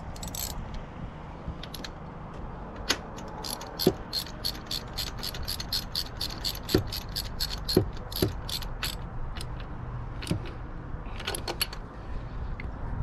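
Ratchet wrench clicking steadily, about four clicks a second, as a cleaned spark plug is turned back into an outboard motor's cylinder head. A few dull knocks come in among the clicks, and a short second run of clicks follows near the end.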